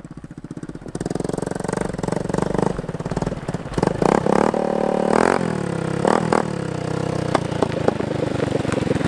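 Small step-through motorcycle fitted with a homemade bamboo exhaust, riding up on a gravel road. The engine gets louder in the first second as it approaches, then revs up and eases off several times, its pitch rising and falling.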